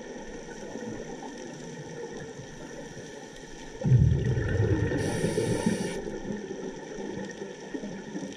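Scuba diver's exhaled bubbles rumbling and gurgling past the underwater camera, starting suddenly about four seconds in and fading over a few seconds, over a steady underwater hiss.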